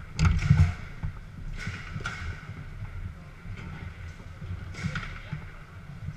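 Garlando table football game in play: sharp knocks of the ball being struck by the players' figures and of the rods clacking, loudest in a quick cluster about half a second in and again around two and five seconds in. Hall chatter runs underneath.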